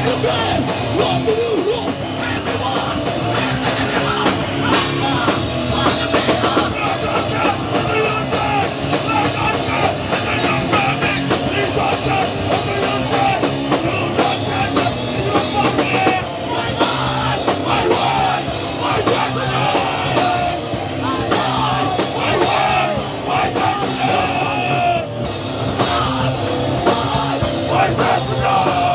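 Hardcore punk band playing live at full volume: distorted guitars, bass and a pounding drum kit, with a voice singing or shouting over them.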